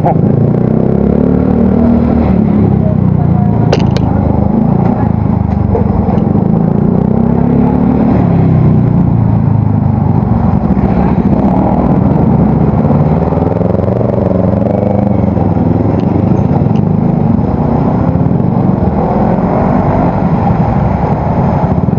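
Yamaha Mio Soul GT scooter's single-cylinder four-stroke engine running through a hollowed-out (bobok) aftermarket muffler while riding, its exhaust note rising and falling with the throttle. The exhaust is set up for a bass, not tinny, sound.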